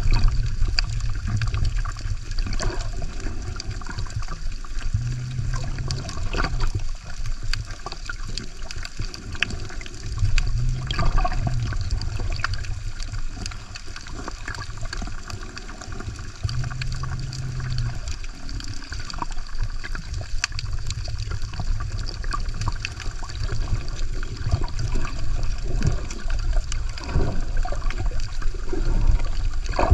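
Muffled water sounds picked up underwater just below the surface: sloshing and swishing over a steady low rumble, with many small scattered clicks.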